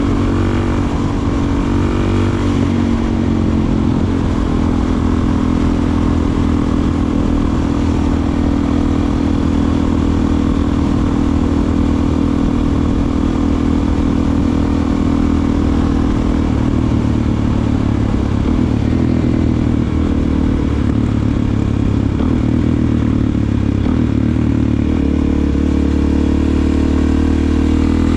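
Suzuki DR-Z400SM's single-cylinder four-stroke engine running through a Delkevic aftermarket exhaust while being ridden. The engine note shifts in pitch in the first couple of seconds, then holds at a steady cruise.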